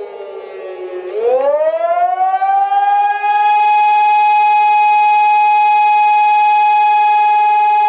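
Civil defense siren winding down in pitch, then winding back up from about a second in and settling into a loud, steady tone.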